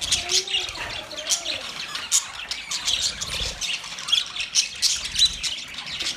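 A group of budgerigars chattering: a dense, continuous stream of rapid high chirps and short scratchy squawks from several birds at once, with a few lower warbled calls.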